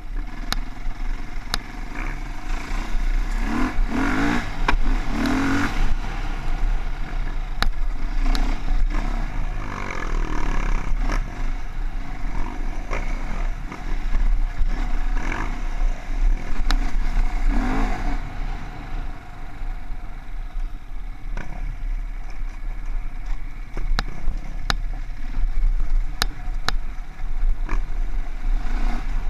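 Enduro dirt bike's engine running and revving up and down as it is ridden over a rocky trail, heard from a camera mounted on the bike, with a constant low rumble and many sharp knocks from the bike hitting rocks.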